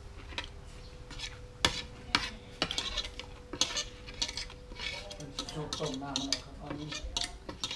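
Metal spoon and fork scraping and clinking against a ceramic plate: a run of sharp, irregular clicks and scrapes.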